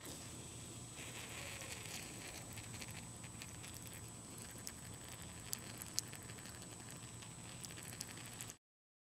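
A stream of urine pattering steadily onto a cloth flag lying on grass, with a few sharp ticks of drops. It cuts off abruptly near the end.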